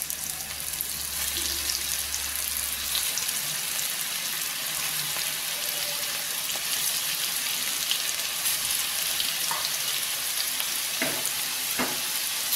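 Breadcrumb-coated fish fingers shallow-frying in hot oil in a nonstick pan: a steady sizzle with fine crackling as more pieces are laid into the oil.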